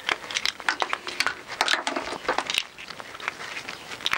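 Hands turning a motorcycle's handlebar switch gear to screw a cable into it: irregular light clicks, taps and rustles of plastic housing and cable.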